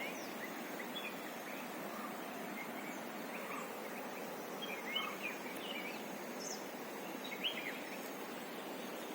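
Steady rush of a waterfall, with birds chirping over it in short scattered calls; a couple of louder calls come about halfway through and again near the end.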